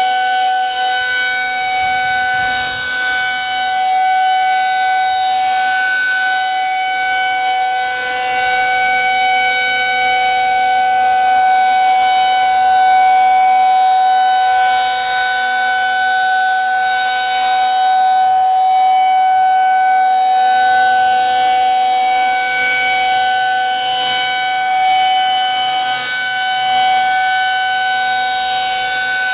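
Federal Signal 2001-SRNB rotating outdoor warning siren sounding at full speed, a loud, steady-pitched wail that swells and fades slightly as the head turns.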